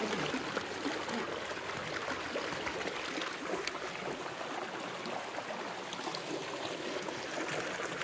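Shallow snowmelt creek trickling and running over sandstone rocks, a steady even wash of water.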